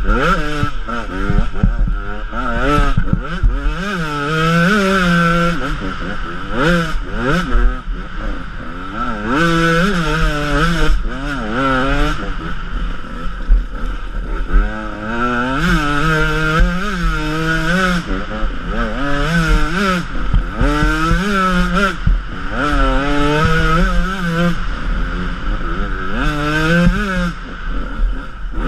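Enduro motorcycle engine, close to a helmet-mounted camera, revving up and falling back over and over as the rider accelerates and backs off through the turns of a forest trail.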